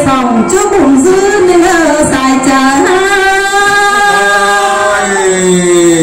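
A woman singing a Thai ethnic folk song into a microphone, in long drawn-out notes with a long wavering held note in the middle. A lower voice comes in near the end.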